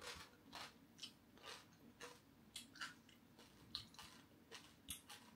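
Faint close-up chewing of a piece of crispy fried dried catfish belly, with soft irregular mouth clicks and crackles about two a second.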